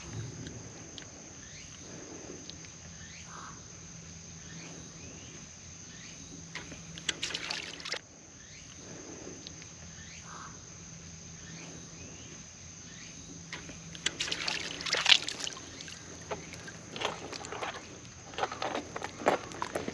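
Seawater lapping and sloshing, with irregular flurries of splashing and crackling now and then.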